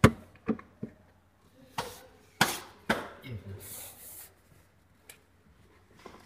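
Hard plastic knocks and clacks as a Yaris armrest is handled and pressed into place against the seat: about six sharp knocks in the first three seconds and one more near five seconds. A brief rustle comes about three and a half seconds in.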